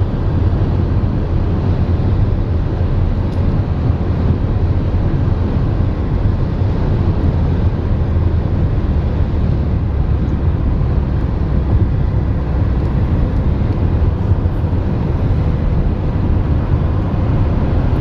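Steady low rumble of a moving car heard from inside the cabin: road and engine noise holding at an even level throughout.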